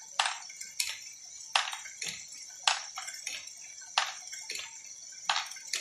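Lego Great Ball Contraption module with strain wave gearing running: sharp plastic clicks and clacks, about one every half second to second, as the mechanism moves and drops its plastic balls. A steady high-pitched whine from the drive motor runs underneath.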